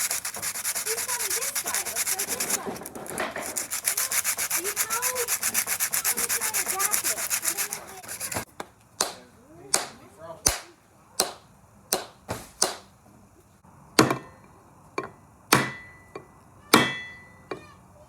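Rapid back-and-forth scraping on a wooden stick handle for about eight seconds, then a series of sharp knocks about once a second as the hatchet head is worked onto the handle, the last few with a short metallic ring.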